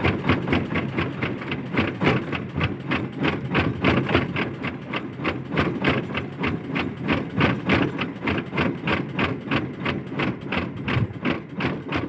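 Small boat engine running with a steady, rapid beat, about four to five a second.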